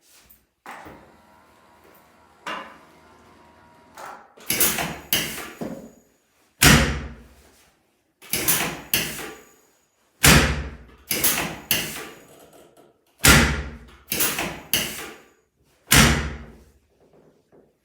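Chiropractic drop-table sections dropping under adjustment thrusts: about a dozen loud clacking thuds, singly and in quick pairs, each ringing off briefly.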